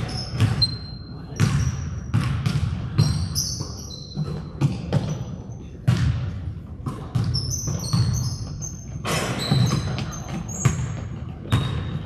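Basketball thudding on a gym floor during a game, in irregular bounces, with short high sneaker squeaks on the court in between.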